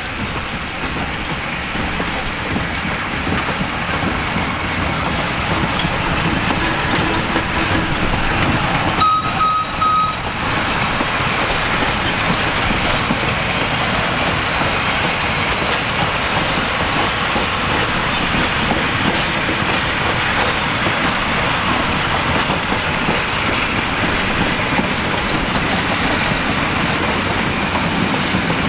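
A passenger train of heavyweight cars rolling slowly past on the rails, a steady rumble and clatter of wheels on track. About nine seconds in, three short, high beeps sound close together.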